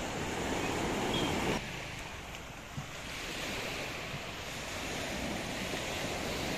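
Small sea waves breaking and washing up a sandy beach, with wind on the microphone; the sound changes abruptly about a second and a half in.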